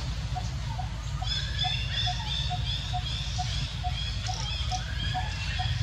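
Outdoor animal and bird calls: a short note repeating about twice a second, joined about a second in by high chirping calls, over a steady low rumble.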